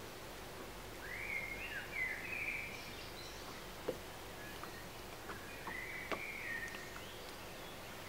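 Songbirds singing short phrases of quick rising and falling whistled notes, twice, over a steady low outdoor background hush; a few sharp ticks, one about halfway through.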